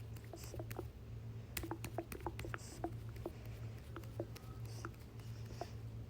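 Stomach gurgling and sloshing: a quick, irregular run of small pops and clicks over a low steady hum.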